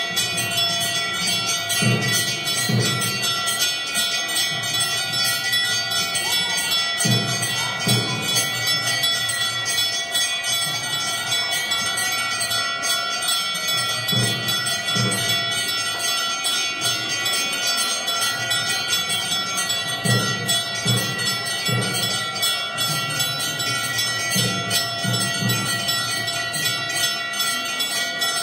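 Temple bells ringing without pause for the aarti lamp offering, a dense wash of steady bell tones. Low thuds come irregularly, often in pairs, under the ringing.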